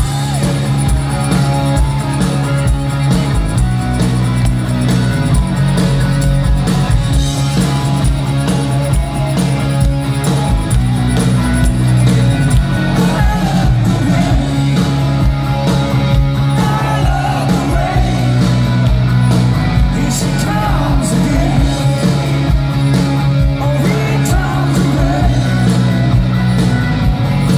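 Live rock band playing loud through a stage PA, with electric guitars, bass, drums and a male lead singer.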